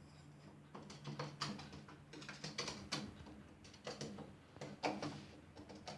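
Chihuahua licking a sphynx cat: quick, irregular wet tongue clicks and smacks in clusters, over a faint steady low hum.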